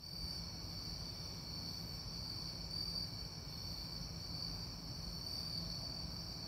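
Night ambience of crickets trilling steadily at a high pitch, over a faint low rumble, fading in from silence at the start.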